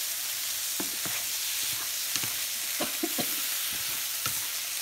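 Goat brain, onions and green chillies frying in coconut oil in a nonstick pan: a steady sizzle, with a wooden spatula knocking and scraping on the pan at irregular moments as the mix is stirred.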